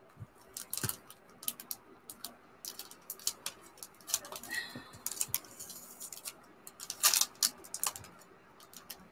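Clear plastic bag crinkling and crackling in the hands as washi tape is peeled off it: irregular sharp clicks and rustles, busiest about seven seconds in.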